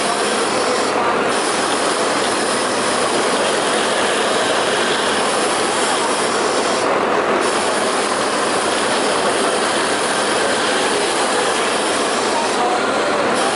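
Kingtex direct-drive 4-needle, 6-thread flat-seamer industrial sewing machine running steadily at speed while stitching knit fabric: a dense, continuous mechanical whirring rattle. Its upper hiss dulls briefly about a second in, again midway, and near the end.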